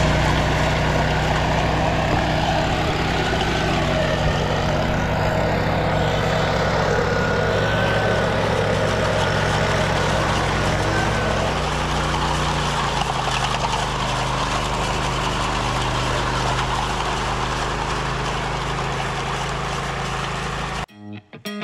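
A large engine running steadily, with a faint whine above it; the engine note shifts slightly lower about twelve seconds in, and the sound cuts off abruptly near the end.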